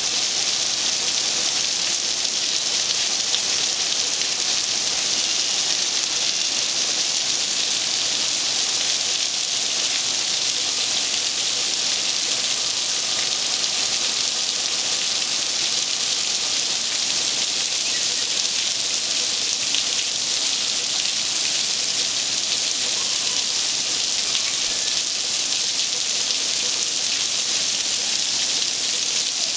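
Heavy rain falling steadily, a dense, even hiss of drops landing on grass and pavement.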